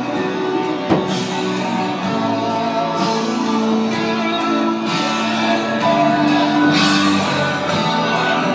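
Music of held instrumental notes that change about every second, with a short hissing accent about every two seconds.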